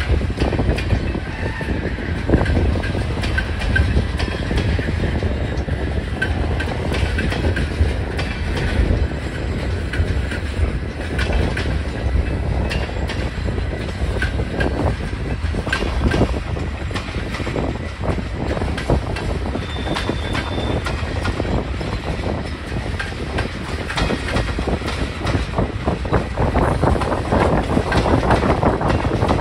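Freight cars of a mixed train (gondolas, tank cars, covered hoppers) rolling past close by: a steady rumble of steel wheels with a clickety-clack of wheels over rail joints. A brief high squeal comes about two-thirds through, over a low wind rumble on the microphone.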